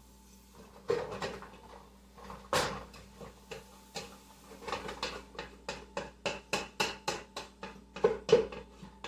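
Clicks and knocks of cooking at the stove, a pot and spoon being handled: a few separate knocks, then a quick run of sharp clicks at about four a second that stops near the end.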